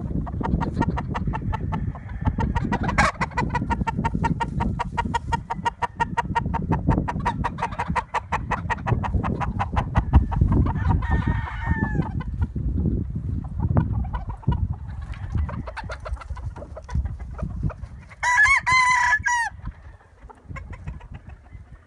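Chickens clucking in a fast, even run for several seconds, then a short call, and near the end a brief loud rooster crow, the loudest sound, over a steady low rumble.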